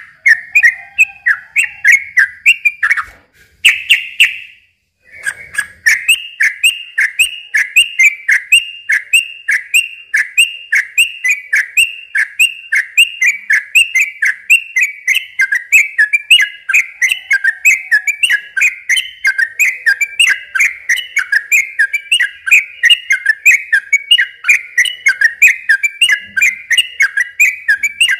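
Sooty-headed bulbul (trucukan) singing a long, fast run of short repeated chirping notes, several a second, with a brief break about three to five seconds in.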